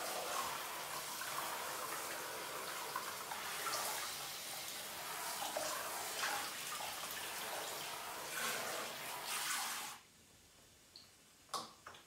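Handheld shower head spraying water onto a dog's wet coat and into a water-filled plastic tub, a steady rush that is shut off abruptly about ten seconds in. A few faint drips follow.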